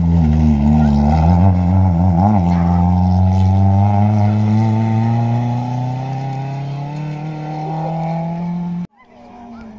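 Rally car engine going by at speed. Its pitch wobbles up and down for the first two seconds or so as the throttle is worked, then climbs steadily in one long pull as the car accelerates away and fades. The sound cuts off abruptly about nine seconds in.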